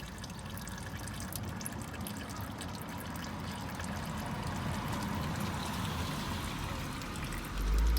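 Old engine oil trickling steadily out of a 2011 Porsche Panamera 4S's engine as it drains during an oil change. A low rumble comes in near the end.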